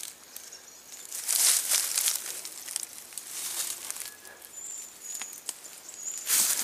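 Scratchy rustling of hands brushing at hair and clothing, in a few bursts: about a second in, again around three and a half seconds, and near the end.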